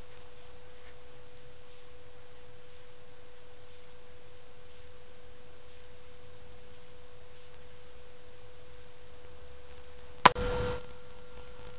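Steady, single-pitched electronic beep held unbroken, like a heart-monitor flatline. A short sharp click with a brief rush of noise comes about ten seconds in, after which a fainter higher tone sounds along with it.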